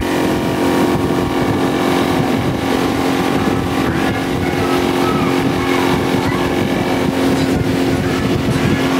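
Mercury outboard motor of a Bass Tracker bass boat running under way at a steady speed, an even drone that holds one pitch.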